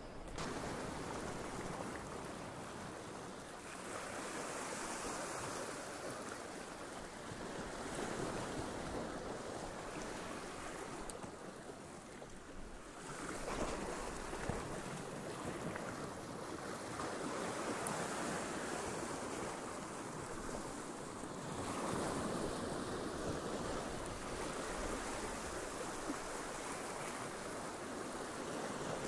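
Sea swell breaking and washing over rocks close by, surging in loudness every four to five seconds.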